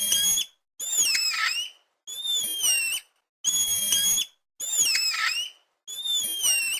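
Spider monkey screeching: six high-pitched, wavering screeches of about a second each, coming about one a second with short gaps between them.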